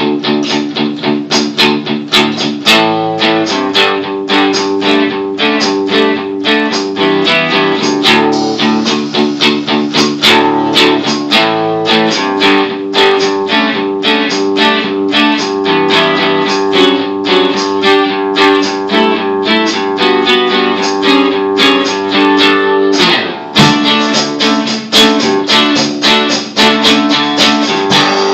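Acoustic guitar strumming chords in a steady rhythm, an instrumental intro with no singing. The strumming breaks off briefly about four-fifths of the way through, then carries on.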